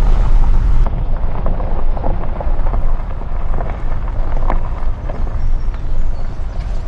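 Car driving along a road: a steady low rumble with wind buffeting the microphone and scattered light clicks.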